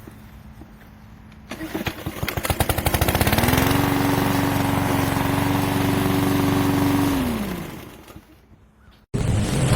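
PowerSmart 144cc OHV push-mower engine catching with uneven firing, then running up to a steady speed for a few seconds. It then slows, dropping in pitch, and dies out: the stalling the owner complains of. Near the end an abrupt cut brings in another loud, steady running sound.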